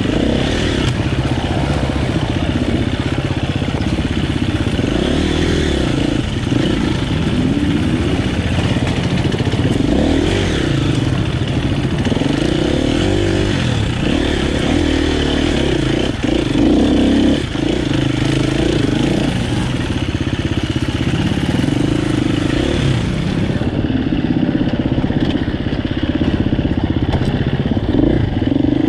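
KTM EXC-F 250 single-cylinder four-stroke enduro engine, revving up and falling back over and over as the dirt bike is ridden over rocks and steep dirt, with a few short knocks from the bike on the rough ground.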